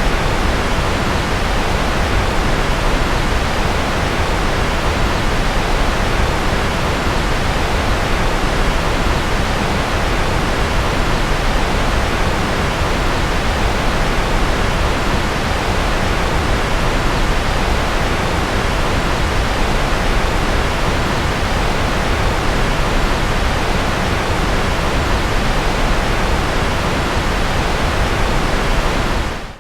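Continuous white noise, a steady rushing hiss with a deep rumble under it, unchanging throughout. It cuts out abruptly for a split second at the very end and then returns.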